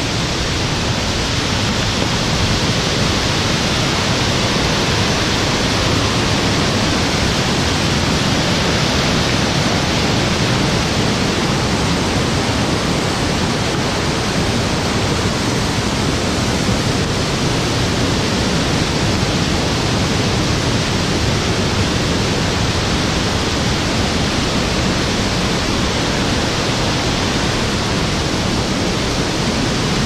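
Steady, loud rush of a mountain stream tumbling down rocky cascades beside the trail, an even noise with no breaks.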